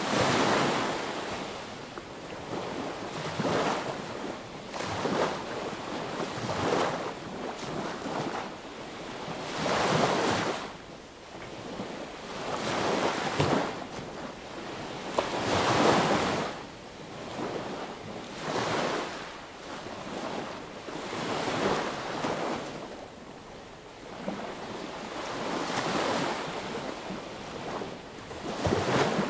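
Small sea waves breaking and washing up on a beach, one swell of surf after another every two to three seconds, the biggest about ten and sixteen seconds in.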